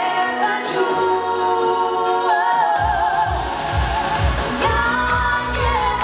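Two girls singing a pop song as a duet into microphones over a backing track. A little under three seconds in, the drums and bass come in with a steady beat.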